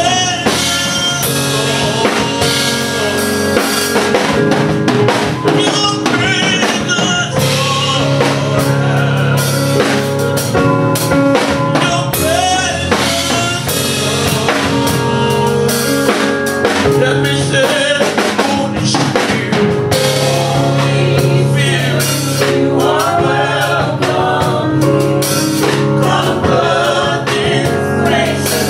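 Live gospel worship song: a man sings into a microphone over sustained instrumental accompaniment and a drum kit.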